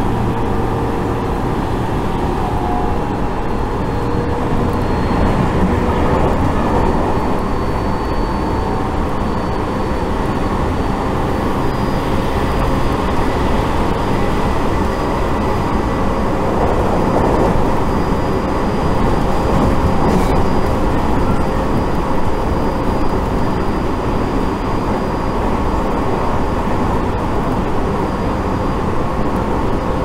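Steady running noise of a Tobu Tojo Line electric train at speed, heard inside the passenger car: a continuous rumble with a faint steady whine over it.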